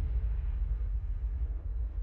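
A deep, low rumble slowly fading away: the tail of a bass-heavy sound effect under an edited logo intro.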